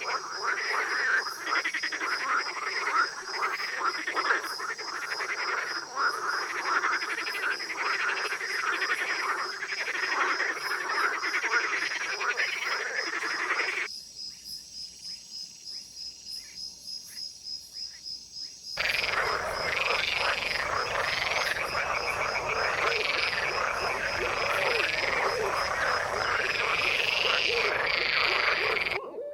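Chorus of many frogs calling at once, a dense overlapping croaking. About fourteen seconds in it gives way to a quieter run of evenly spaced pulsed calls, about three a second, and a dense chorus returns near the end, over a steady, fast, high-pitched ticking.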